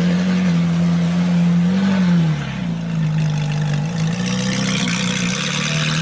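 Ferrari 458 Italia's V8 engine running at low revs as the car pulls away slowly, with a short rise and fall in revs about two seconds in.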